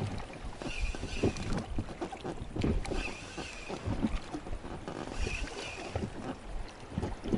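Choppy lagoon water lapping and splashing, with wind buffeting the microphone. A short higher hiss comes back every two seconds or so.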